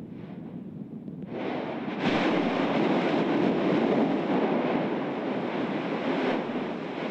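Yasur volcano's strombolian eruption: a rushing noise of gas and lava spatter bursting from the vent. It builds about a second in, jumps much louder at two seconds, holds for about four seconds, then eases off near the end.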